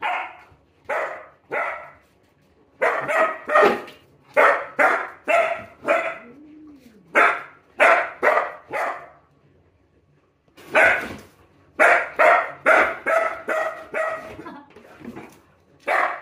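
Cocker spaniel puppy barking over and over in quick runs of short, sharp barks, with two brief pauses, one about two seconds in and a longer one a little past the middle.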